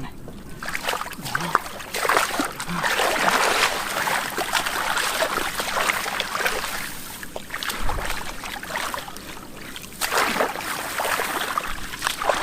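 Shallow muddy water splashing and sloshing in irregular bouts, as from wading and groping by hand for fish, with a lull about two-thirds of the way through.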